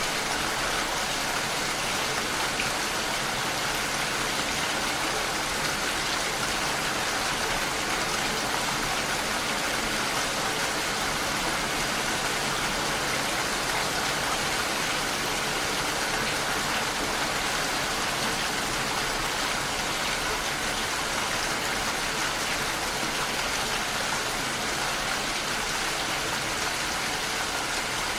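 Rain hitting a window, a steady even hiss with no breaks or single loud drops.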